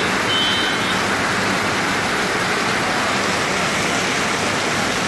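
Heavy monsoon rain pouring down, a steady even hiss of rain on surfaces.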